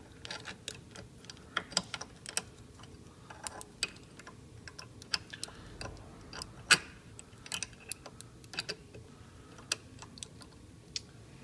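Irregular light clicks and taps of hard parts as a piston with a new glide ring is fitted back onto its connecting rod inside a Hitachi air suspension compressor's cylinder housing, with one louder click a little past halfway.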